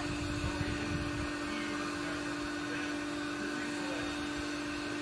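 Wind buffeting the microphone: uneven low rumbling gusts, strongest in the first second, over a steady hum.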